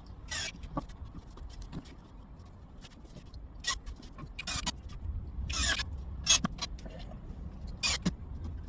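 Irregular short scraping and scuffing strokes from hand work on wooden pieces, about six of them spread unevenly across several seconds.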